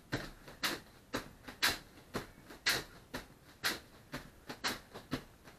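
Bare feet landing on foam training mats in quick, even hops, about two a second.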